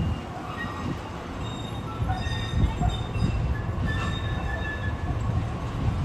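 Two-car Muni Breda light-rail train rolling slowly, with short high-pitched squeals from its steel wheels over a low rumble.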